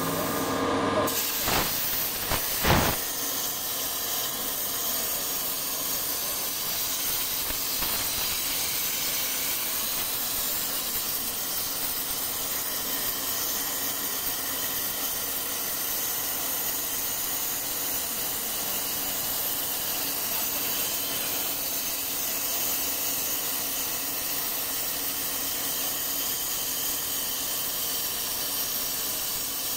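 Plasma torch of a CNC-6000P pipe-cutting machine hissing steadily as it cuts a steel pipe, with a couple of sharp cracks about two and three seconds in.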